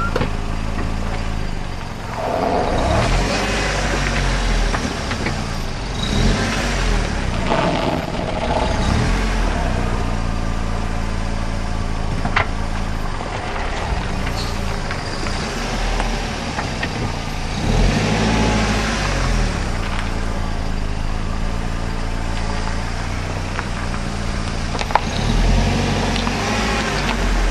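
A car moving slowly with its tyres rubbing along a kerb and squeaking as they scrub against it. The engine note rises and falls several times.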